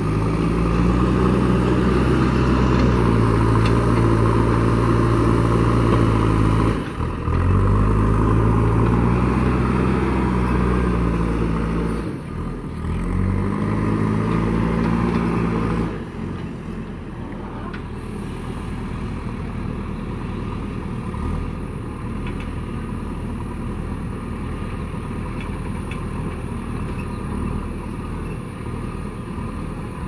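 JCB backhoe loader's diesel engine working hard under load, its pitch dipping and climbing back twice. About halfway through it drops to quieter, steadier running.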